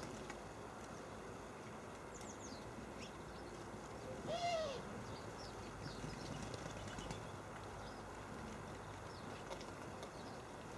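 Small garden birds at a winter feeder: faint, short, high chirps scattered through, and one louder, lower call that rises and falls about four and a half seconds in.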